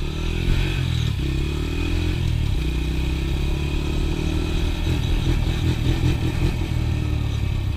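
Honda TRX90 ATV's small single-cylinder four-stroke engine running under way, its pitch rising and falling as the throttle opens and closes.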